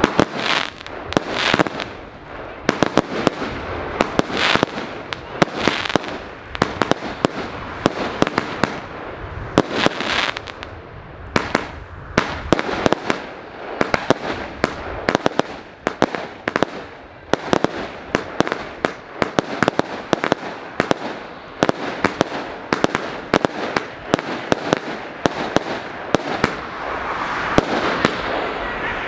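Consumer fireworks battery (cake) firing a long sequence of shots: rapid bangs and pops, several a second, as each shot launches and bursts overhead.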